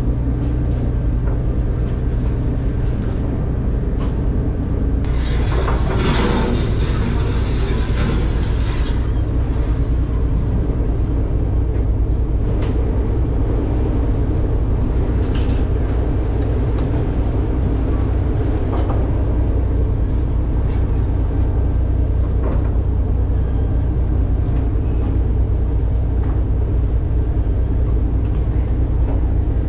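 Ocean 16 ferry's engines running with a steady low drone as the boat berths. A hissing rush comes in about five seconds in and lasts some four seconds.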